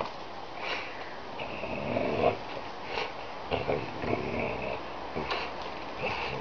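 Pit bull breathing hard and snorting through its nose in repeated noisy bursts while gripping and tugging a hanging fishing buoy in its jaws.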